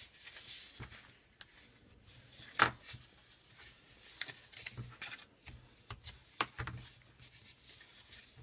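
Scored cardstock being folded and creased by hand: scattered paper rustles and crackles, with one sharp, louder click about two and a half seconds in.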